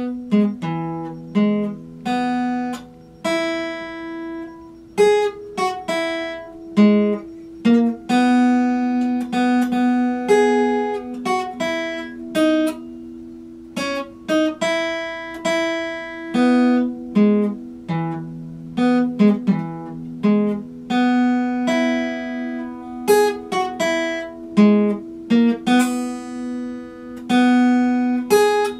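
Epiphone acoustic guitar played with plucked single notes, a melody picked out over low strings that keep ringing underneath. It starts abruptly.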